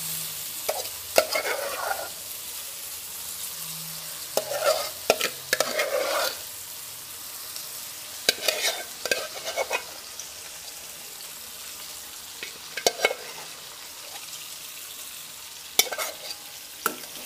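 Oil sizzling in a frying pan under a freshly added heap of mashed brinjal bajji, with fried onions, garlic, dried chilies and curry leaves. A spatula scrapes and taps against the pan in several short bursts.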